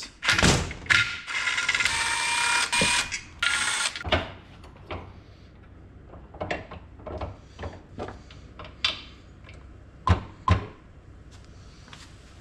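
A cordless drill runs in short spurts for a few seconds. Then come scattered metal clicks and clanks of a small part being set and clamped in a bench vise, with two sharper knocks near the end.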